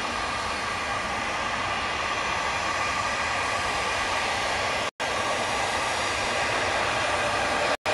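Embraer Legacy business jet's twin rear-mounted turbofans whining steadily at taxi power as it rolls past. The sound cuts out for a split second twice, about five seconds in and near the end.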